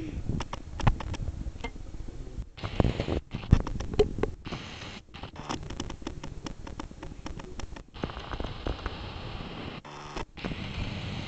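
Cardboard graham cracker box rustling and knocking irregularly as a Basenji with her head stuck in it moves around, the loudest knocks about three and a half to four seconds in. The sound cuts out briefly several times.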